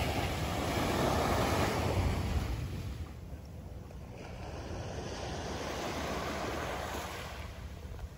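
Surf washing onto a sandy beach, swelling and easing twice, with wind rumbling on the microphone.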